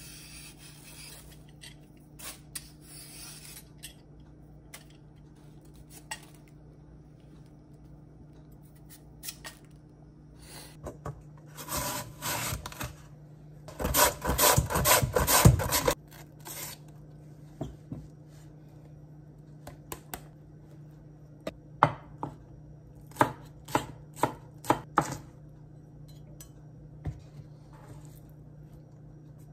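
Daikon radish scraped with a vegetable peeler, then rubbed rapidly back and forth across a plastic julienne grater into a steel bowl, the loudest stretch, about halfway through. Later a knife chops on a wooden cutting board in a quick series of sharp knocks, over a steady low hum.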